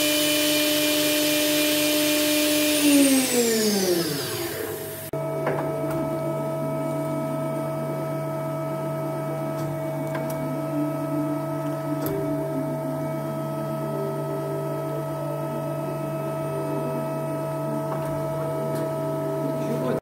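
Mazak Variaxis i-600 machining centre spindle spinning with a steady whine, then running down and stopping about four seconds in. After that comes a steady machine hum with a few faint clicks.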